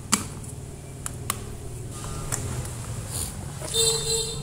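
Sharp clicks and knocks of a stainless electric kettle and its power cord being handled, over a steady low rumble, with a short tone a little before the end.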